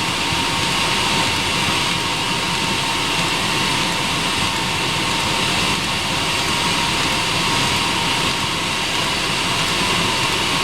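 Eberspacher D1L diesel heater running with its blower fan at speed: a steady rushing air noise with a thin constant whine. It is running poorly and not burning properly, the outlet air only about 21 degrees, which the owner puts down to a fuel pump that is probably the wrong size and not adding enough fuel.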